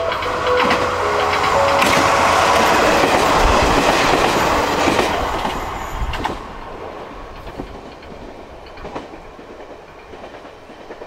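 A train running past on the track beside the platform, loud for the first six seconds, then fading, with a few clicks of wheels over rail joints. The last notes of the station's train-approach melody ring out just at the start.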